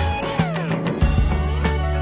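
Background music with a steady beat and a strong bass line, with a falling pitch sweep about half a second in and a rising one just past the middle.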